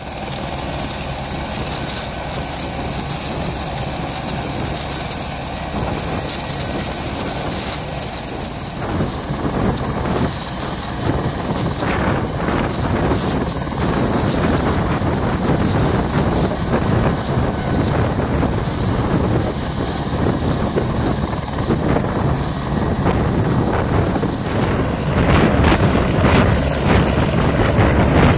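Eurocopter AS355 Twinstar twin-turbine helicopter running on the ground with a steady high turbine whine under the rotor noise. It grows louder near the end as it lifts off into a hover.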